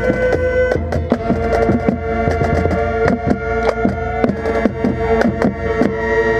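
High school marching band playing: held wind and brass chords over frequent drum hits, heard from inside the band's tenor saxophone section.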